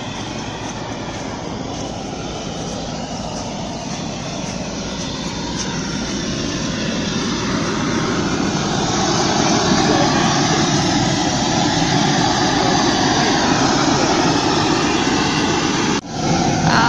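Propane gas burner running under a large cooking pot, a steady rushing roar that grows louder in the middle and then holds level.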